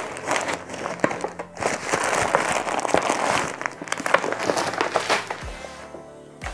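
Brown kraft paper mailer bag rustling and crinkling as hands open it and rummage inside, a busy run of small crackles that quietens near the end.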